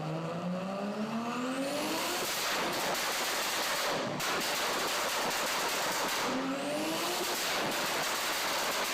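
BMW E30 engine with anti-lag revving up twice. Each rise in pitch gives way to seconds of rapid crackling and popping from the exhaust, the sound of the anti-lag system firing.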